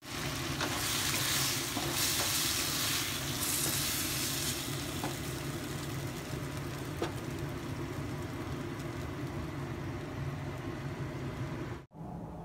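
Silk squash (patola) and black wood-ear fungus sizzling as they fry in oil in a wok. The sizzle is loudest for the first few seconds, then settles and runs on steadily with a few faint clicks, and it breaks off near the end.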